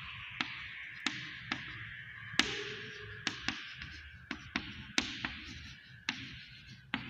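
Chalk writing on a chalkboard: irregular sharp taps and scrapes as each stroke starts, about two a second, over a steady hiss.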